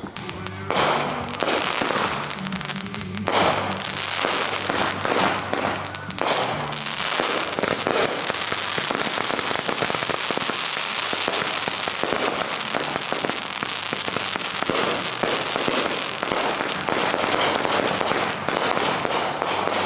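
Consumer aerial fireworks going off: a rapid, unbroken string of shots, bangs and crackling that starts about a second in.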